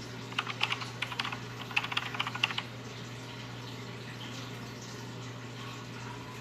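A quick run of light clicks for about two seconds, then only a faint steady low hum.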